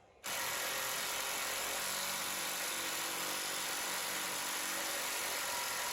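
Impact gun starting suddenly and running steadily with a loud hiss for almost six seconds, spinning off the steering knuckle's pinch bolt.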